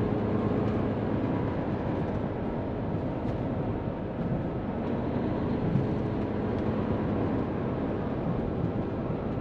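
Steady in-cab noise of a Hino semi-tractor cruising on the expressway: the diesel engine's drone mixed with tyre and road noise, heard from inside the cab.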